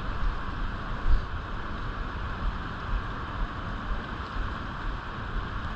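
Steady rush of flowing river water, with wind buffeting the microphone in an uneven low rumble.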